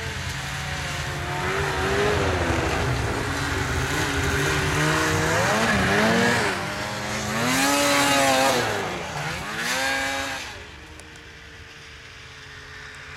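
Several snowmobile engines revving up and down as the sleds ride past, loudest as a Polaris snowmobile passes close by, about six to eight seconds in. After about ten seconds the engines fade to a quieter, steady hum as the sleds move off.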